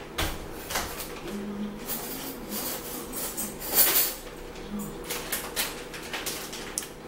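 Kitchen clatter of dishes and cutlery being handled and a drawer being pulled open, a string of irregular knocks and clinks with the loudest about four seconds in.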